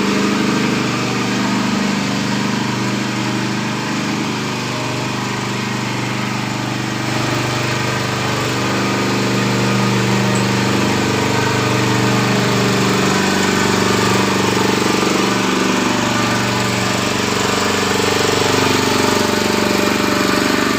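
Small engine of a mini rotavator running steadily as the machine works, with a constant, even pitch.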